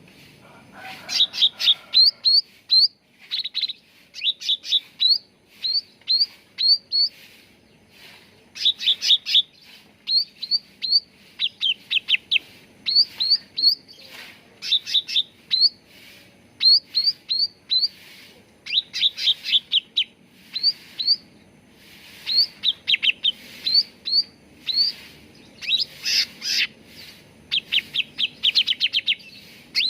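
Cucak ranting songbird calling: short, sharp, upswept chirps repeated in quick clusters of several notes, a new cluster about every second or two.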